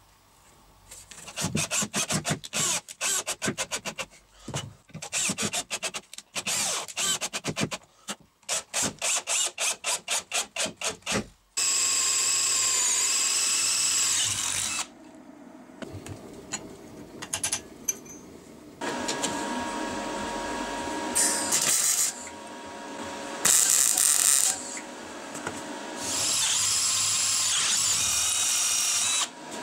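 A power drill boring through a steel strip, running in several long bursts with a brief sag in pitch under load. Before it comes a fast series of short strokes that quickens to about five a second.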